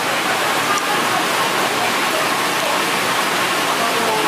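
Steady rushing noise like running water, with faint voices in the background.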